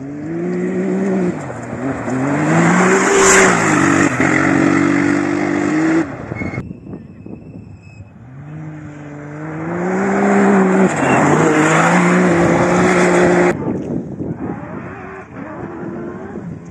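Rally car engine revving hard as the car accelerates along a stage. The pitch climbs and drops back at each gearshift, then holds high. The run is heard twice, and each one cuts off suddenly: about six seconds in, and again a few seconds before the end.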